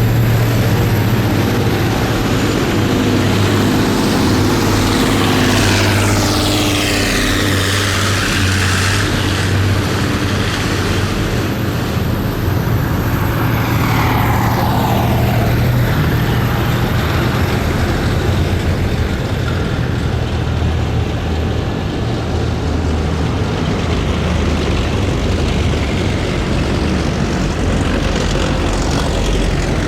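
Heavy military vehicles driving past in a column, their engines running with a deep steady drone. The sound sweeps as vehicles pass about seven seconds in and again near the end, and a falling whine comes about fourteen seconds in.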